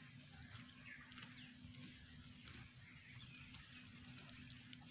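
Near silence: faint outdoor ambience with a few faint, distant bird chirps.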